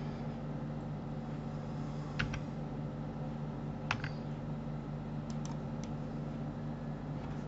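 A few sharp clicks of a computer keyboard and mouse, about six in all, some in quick pairs, over a steady low hum.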